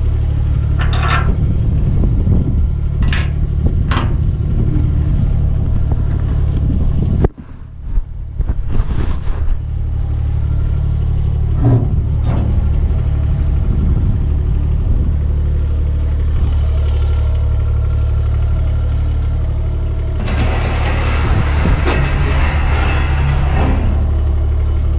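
A vehicle engine idling steadily, with a few sharp metal clicks and clanks. The engine sound cuts out briefly about seven seconds in, then returns. Near the end comes a stretch of scraping and rattling as aluminium loading ramps are handled at the back of the dump truck.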